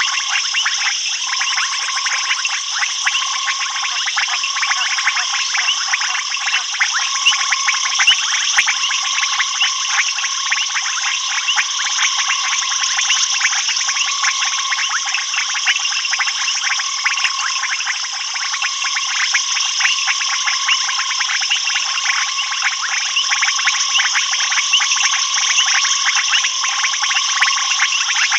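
Dense night chorus of frogs and insects: steady high-pitched trilling over rapid, continuous clicking, with a lower pulsing call repeating about once a second.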